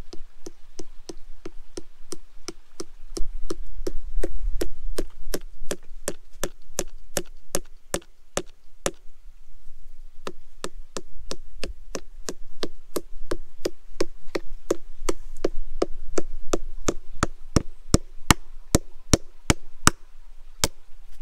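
A coin being hammered edge-on into the wood of a tree: a long, steady run of sharp knocks, about three a second.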